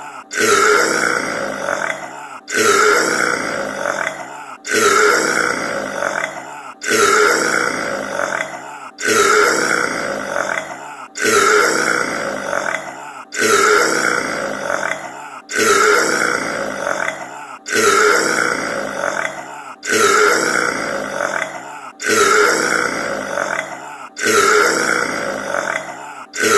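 A loud burp, the same recording looped over and over: about a dozen identical burps, one every two seconds or so, each starting suddenly and tailing off.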